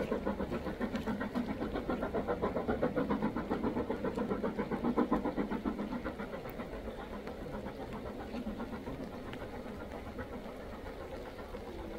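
Steam locomotive hauling a train, chuffing in a quick, even beat that grows fainter from about halfway through as the train draws away.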